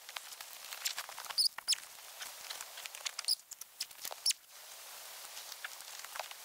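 Crinkly rustling of nylon camping gear being handled, a backpack and stuff sacks, with many small sharp clicks and scrapes scattered through it.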